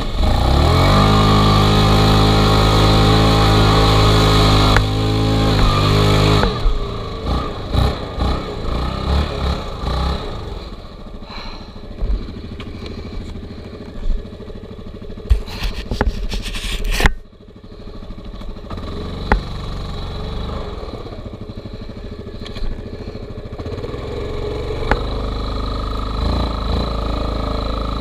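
Quad bike (ATV) engine revving up sharply at the start and held at high revs for about six seconds, then dropping back to uneven running with scattered knocks as the quad rides over rough moorland ground; it settles into steadier running near the end.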